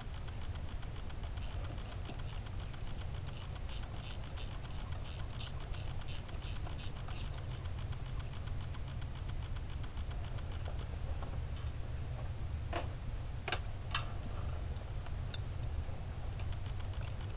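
Ratchet wrench clicking as it turns a spark plug out of the 2004 Kia Sorento's engine: a quick, even run of clicks, then a few separate, sharper clicks later on. The plug has come loose, and the mechanic suspects its threads in the head are stripped. A steady low rumble runs underneath.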